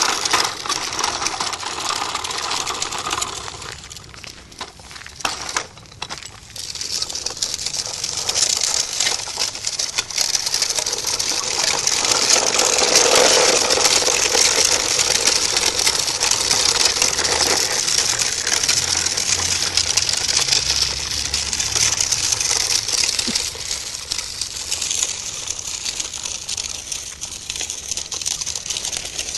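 Footsteps crunching steadily on a gravel path at a brisk walk, with a constant crackly hiss; it eases off briefly about four seconds in, then picks up again.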